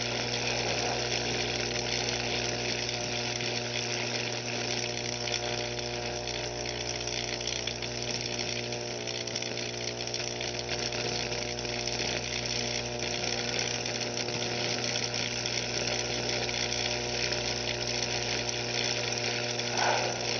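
A 15,000-volt electric arc burning through a chicken eggshell at a wire electrode makes a steady electrical buzz with a constant crackle.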